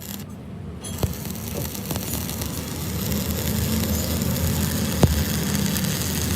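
An engine running with a low rumble that grows louder over the first few seconds and then holds steady, with two sharp knocks, one about a second in and one near the end.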